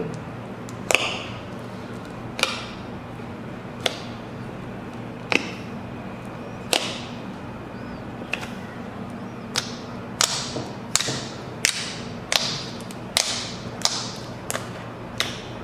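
Slime being poked and pressed with a finger in a plastic palette, making sharp clicking pops. They come about one every second and a half at first, then faster, about one every 0.7 s, in the second half.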